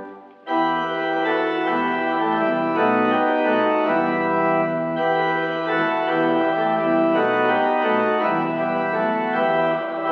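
Church organ playing sustained chords of a hymn-like piece, starting about half a second in after a brief pause.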